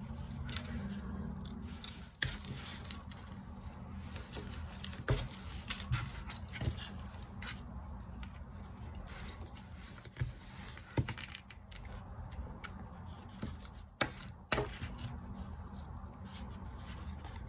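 Small plastic and metal parts of a dismantled LED night light, screws among them, clicking, clinking and scraping as they are handled and set down, in scattered irregular knocks.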